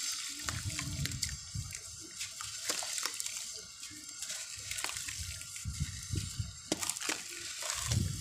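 Wet sand-cement lumps crumbling in the hands and falling back into a tub of muddy water: gritty crackle and many small clicks of grains over sloshing, trickling and splashing water.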